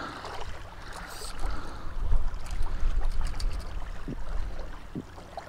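Gusty wind buffeting the microphone, a low rumble that swells and fades, with a few light clicks.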